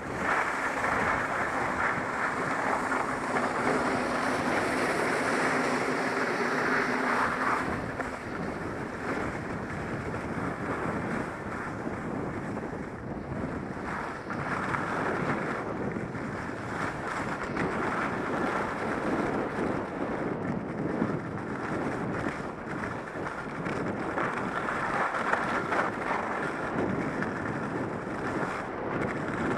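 Skis sliding and scraping over snow during a run, mixed with wind buffeting the microphone, a steady rushing noise that rises and falls.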